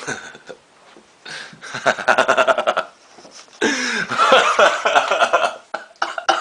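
A man's hoarse, throaty non-speech vocal sounds: a rapid stuttering run, then a longer wavering groan, from a man with a heavy cold.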